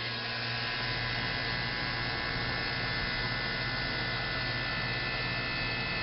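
Several central air conditioner outdoor condenser units running: a steady low hum with fan noise and a few steady higher tones.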